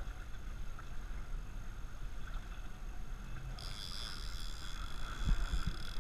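Boat engine running steadily with water and wind noise, a low rumble throughout; a high steady whine joins about three and a half seconds in, and a few low thumps come near the end.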